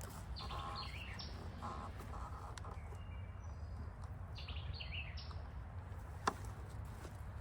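A bird singing a short phrase of falling chirps twice, about four seconds apart, over a steady low rumble. A single sharp knock comes near the end.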